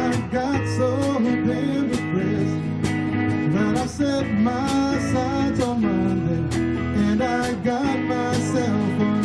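A live band playing a song, with electric or acoustic guitar over bass and drums keeping a steady beat of about two hits a second; no lyrics are sung.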